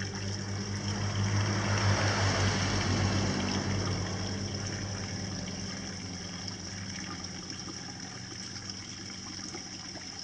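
Water running and trickling steadily over a low, steady hum. The water noise swells louder for a few seconds about a second in, then settles back.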